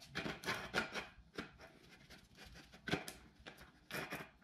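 Handling of a plywood panel and a threaded steel rod on a workbench: a few irregular wooden knocks and scrapes, with the drill not running.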